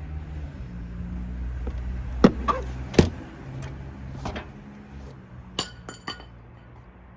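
A string of sharp clinks and knocks, about seven in all and loudest a little past two and three seconds in, as small hard parts or tools are handled and set down during work on a scooter battery. A low steady hum runs beneath.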